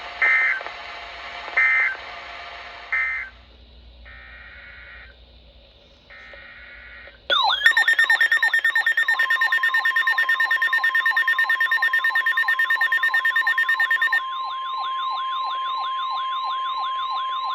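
Emergency Alert System (SAME) header on NOAA Weather Radio: three short bursts of screeching data tones, then two fainter ones. From about seven seconds in comes an electronic alert of fast warbling siren-like sweeps. From about nine seconds it is joined by the steady weather-radio warning tone. These signal that a new severe thunderstorm warning is being issued.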